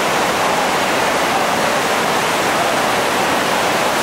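Whitewater of a large, steep river rapid rushing steadily, a dense unbroken wash of water noise.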